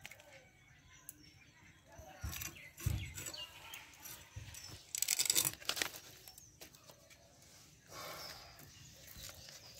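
Fish being cut and cleaned by hand: two low knocks between two and three seconds in, then a short burst of scraping and rustling about five seconds in, with fainter rustles around it.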